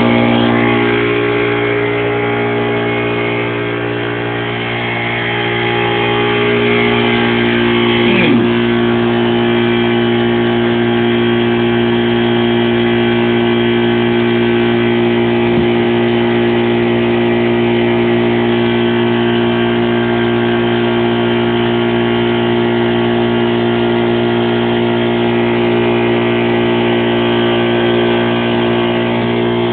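An engine running steadily at a constant idle, with one brief downward pitch glide about eight seconds in.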